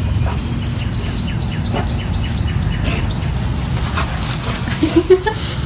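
Outdoor backyard ambience: insects trilling in a steady high drone, with a run of short bird chirps in the first few seconds over a low rumble. A few short, loud pitched sounds come near the end.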